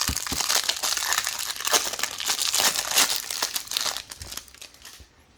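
Plastic wrapping on a trading-card box or pack crinkling and tearing as it is opened by hand. The crackling fades out about four seconds in.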